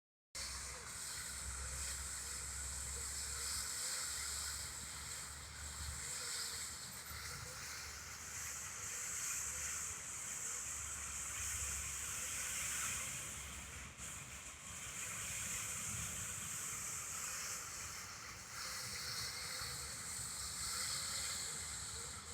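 Steady outdoor noise: wind buffeting the microphone in an uneven low rumble, over a continuous high hiss.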